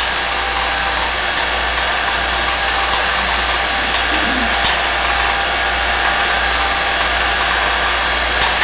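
A steady low hum with a constant hiss over it, unchanging throughout, with a faint voice heard briefly about four seconds in.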